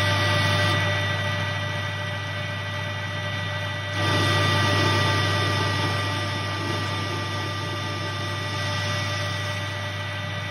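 Metal lathe running, its spinning chuck and drive giving a steady hum with a whine on top, while the tool turns down a steel bar. It gets louder for a few seconds about four seconds in.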